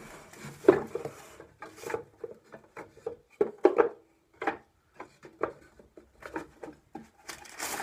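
Wooden beehive frames knocking and clattering as they are handled in a wooden medium hive body: a run of short, irregular knocks.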